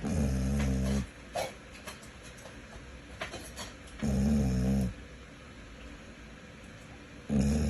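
A dog snoring: three loud, pitched snores each about a second long, coming roughly every three and a half to four seconds, the third cut off at the end.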